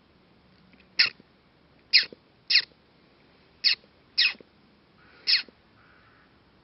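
Six short animal calls at uneven intervals of about half a second to a second, each falling slightly in pitch.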